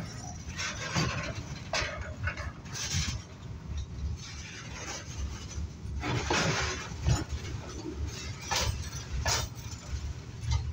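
Freight train of loaded flat wagons rolling slowly past close by: a steady rumble of steel wheels on the rails, broken by irregular metallic clanks and clatters.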